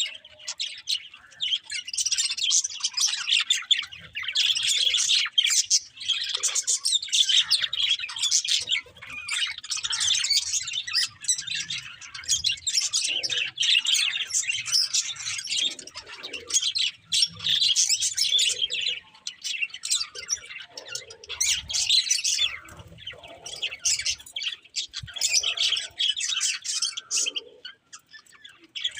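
Budgerigars chirping and warbling in rapid, continuous chatter, with a brief lull near the end.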